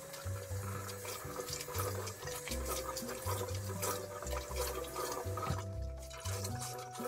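Water running from a kitchen tap onto a cloth being rinsed in a stainless steel sink, with background music playing.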